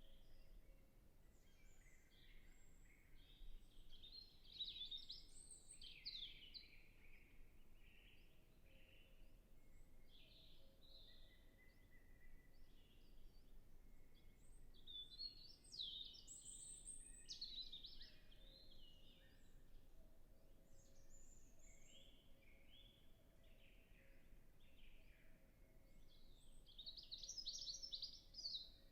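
European robin singing faintly: three phrases of quick, high, tumbling notes, each a second or more long, with pauses between, about four seconds in, around fifteen seconds in and near the end.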